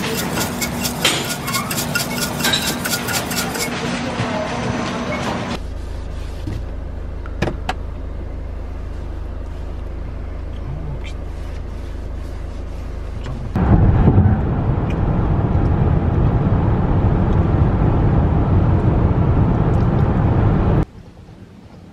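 Vehicle noise: a steady low rumble of a vehicle on the move, in a few edited clips. The last clip is louder and cuts off suddenly near the end.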